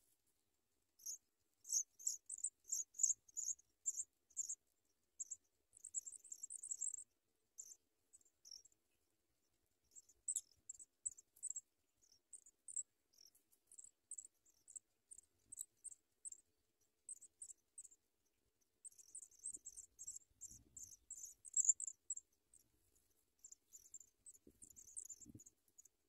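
Pipit nestlings begging at the nest: high, thin cheeping in quick runs of short notes, broken by brief pauses.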